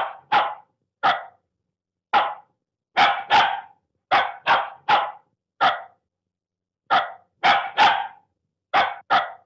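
A dog barking repeatedly: about fifteen short barks, singly and in quick twos and threes, separated by short pauses.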